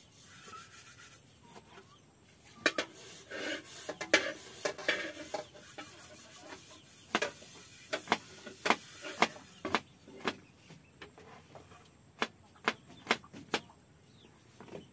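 A series of sharp knocks on wood, about a dozen and irregularly spaced, with rubbing and scraping sounds between them. This is kitchen work.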